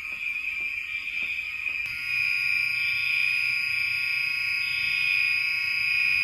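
Fire alarm horn/strobes sounding a continuous, steady high-pitched electronic tone. About two seconds in it grows louder. Faint regular clicks, about two a second, are heard under it until then.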